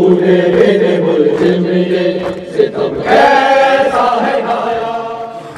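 Shia mourning chant (noha) from a procession: a lead male voice chants into a microphone in long held notes, with other voices joining in. A new, higher phrase begins about three seconds in.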